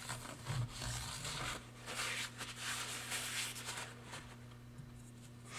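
Paper towel wiping and rustling against a clutch basket's freshly pressed-on drive gear, a few soft scrubbing strokes over the first four seconds, wiping excess oil off the gear. A faint steady low hum underneath.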